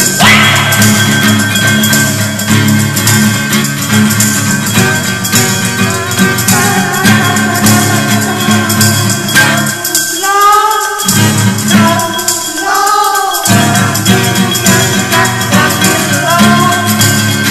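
Background music with light shaker-like percussion throughout; twice, near the middle, the bass drops out briefly.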